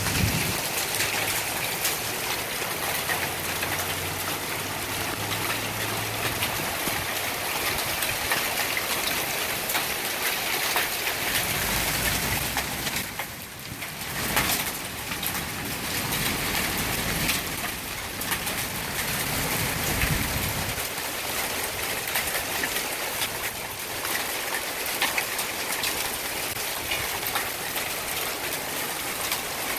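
Steady spring-storm rain with a little hail: a dense hiss of countless small drop and pellet impacts. A low rumble comes twice, near the middle and about two-thirds of the way through.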